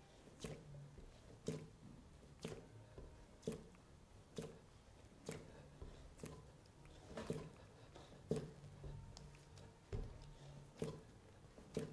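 A ball of stoneware clay being kneaded and pressed down by hand on a plaster wedging slab: a soft, squashy thud about once a second.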